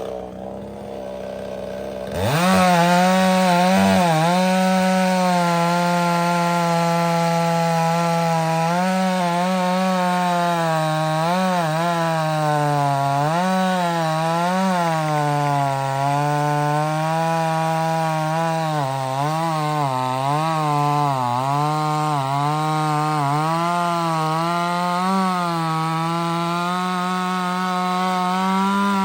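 Cheap 58cc Chinese two-stroke chainsaw opening up to full throttle about two seconds in and cutting through a large red oak log. Its engine pitch dips and recovers again and again as it bogs under heavy pressure in the cut.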